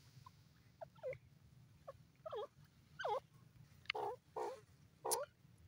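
Grey francolin calling: a series of short calls with bending pitch, faint and scattered at first, coming closer together and louder toward the end.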